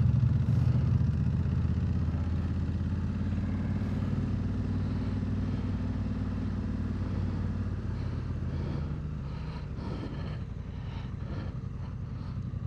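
Motorcycle engine idling steadily, with a few faint clicks in the second half.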